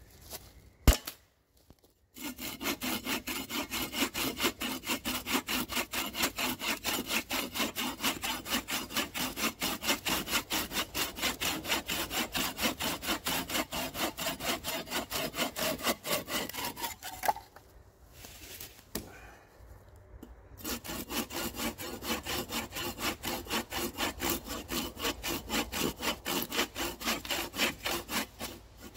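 Hand saw cutting through wood with quick, even back-and-forth strokes. It stops for about three seconds past the middle, then starts again.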